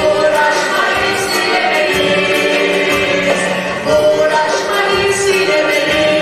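Male and female soloists singing a Turkish folk song in duet, backed by a mixed choir and an ensemble of traditional instruments such as bağlama and kanun, with a steady beat.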